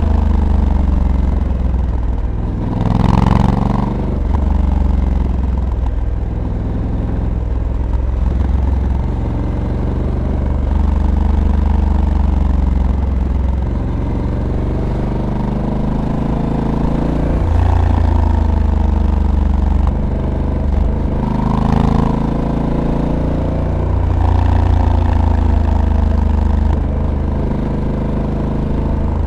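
Honda Africa Twin's 1084 cc parallel-twin engine under way, its note repeatedly rising and falling in steps as the dual-clutch transmission shifts gears, with two brief louder surges.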